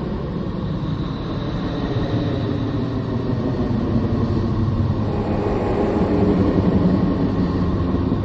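Low, steady rumbling drone with a faint high tone drifting over it for a few seconds early on, growing slightly louder near the end. It is a sonified space recording of the kind presented as a planet's sound, made by converting spacecraft radio and plasma-wave data into audio.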